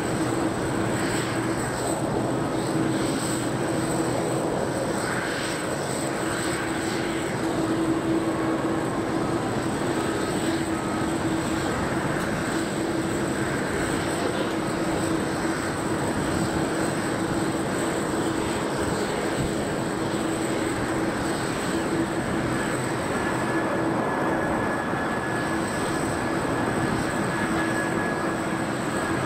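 Steady jet-aircraft noise across an airport apron: a constant drone with a steady low hum and a steady high whine. A second, higher whine comes in about two-thirds of the way through.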